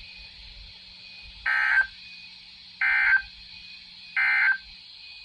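Three short bursts of EAS SAME digital data tones, evenly spaced about a second and a half apart: the end-of-message code that closes a NOAA Weather Radio warning broadcast.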